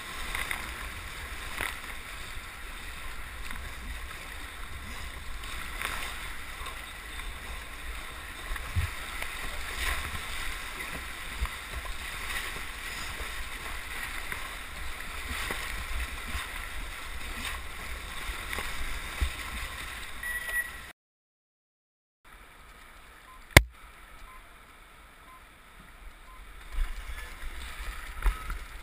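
Whitewater rapids rushing and splashing around a wildwater racing boat. About 21 s in, the sound drops out for about a second, then comes one sharp click, and the water returns quieter.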